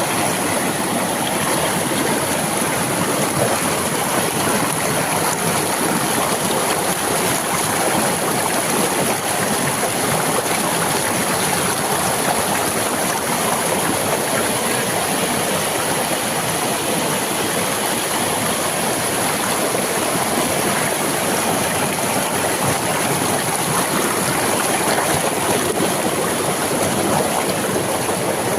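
Water rushing steadily over a small dam, with a steady high-pitched hiss above it.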